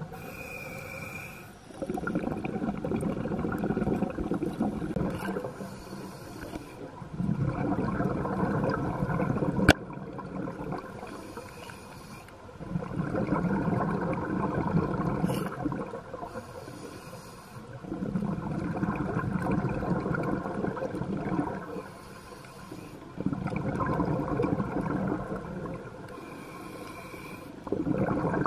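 Scuba diver breathing through a regulator underwater, about every five seconds: a short hissing inhale, then a longer bubbling exhale. A single sharp click comes about ten seconds in.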